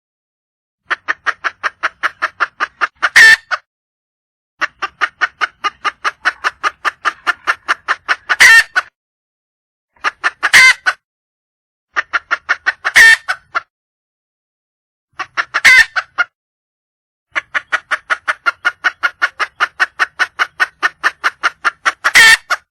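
Junglefowl hen calling for a mate: six runs of rapid clucks, about four a second, each run ending in one louder note, with silent gaps between runs.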